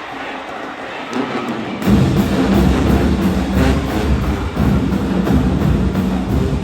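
High school marching band striking up suddenly about two seconds in, loud drums with low held horn notes over them, after a stretch of crowd noise.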